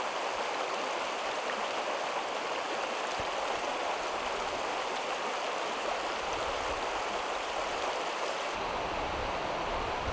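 Shallow creek water rushing over stones and rapids in a steady rush. Near the end the sound turns duller, with a low rumble.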